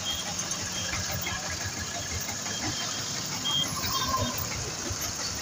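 Road traffic on a busy highway: diesel truck engines running at low speed in a queue, with steady road noise.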